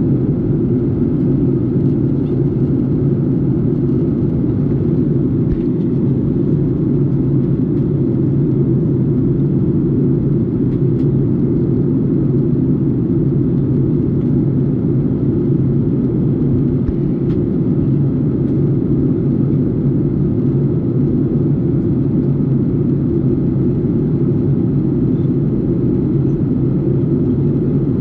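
Steady low drone inside a jet airliner's cabin in flight: engine and airflow noise, even and unchanging.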